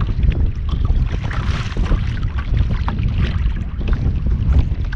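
Wind buffeting the microphone in a heavy, uneven rumble, with choppy water splashing and slapping irregularly against a fishing kayak's hull.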